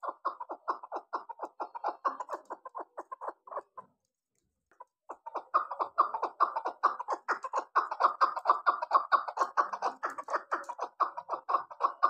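Six-month-old chukar partridge giving its rapid, repeated chuck-chuck call, about seven notes a second. A run of notes stops a little under four seconds in, and after a short pause a second, louder run starts and carries on.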